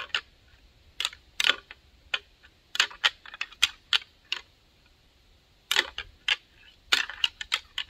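A pair of deer antlers clacked and ground together in several bursts of sharp, irregular clicks, with a short pause about midway. It is a whitetail rattling call, imitating bucks sparring.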